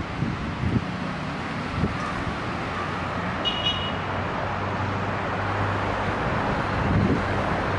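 Steady outdoor background of distant road traffic and wind on the microphone, with a low hum through the second half and a short high beep about three and a half seconds in.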